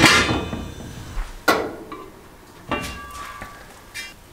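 A lid is set down on a frying pan with a clank and a ringing that dies away over about a second. Two more sharp metallic knocks with shorter ringing follow about one and a half and nearly three seconds in, then a small tap near the end.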